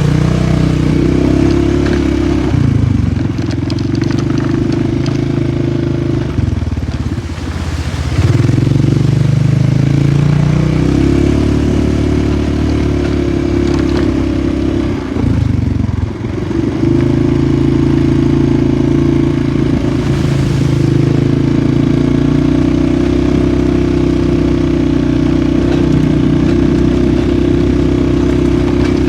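Polaris 450 ATV engine running steadily under throttle while riding, easing off and picking back up about three times, near 3, 7 and 16 seconds in.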